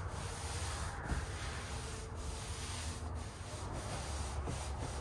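Soft-bristle brush on an extension pole scrubbing wet lap siding, a steady rubbing swish with brief breaks between strokes. It is a light scrub, agitating the dwelled soft-wash chemical to loosen caked-on fly residue.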